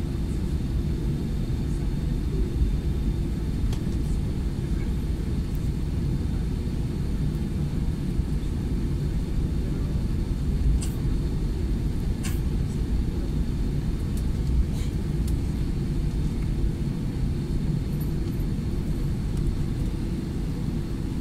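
Steady low rumble inside an Airbus A320-200's cabin as it taxis, from the engines at low power and the wheels rolling, with a faint high whine held throughout.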